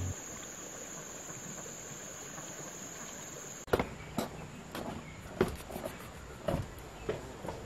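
A steady, high-pitched insect drone. A little under four seconds in, it drops to a fainter drone broken by short, sharp sounds at irregular intervals, about one every half second to second.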